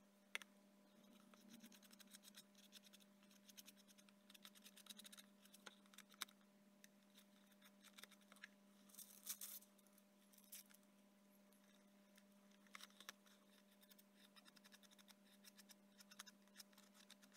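Faint scratchy dabbing of a glue brush on thin decoupage paper over a cardboard model, in scattered clusters of soft clicks, over a faint steady low hum.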